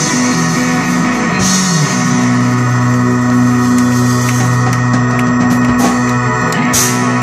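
Live electric blues band (electric guitar, bass, keyboards and drum kit) ringing out a long held chord that closes the song, with a cymbal crash about a second and a half in and another near the end.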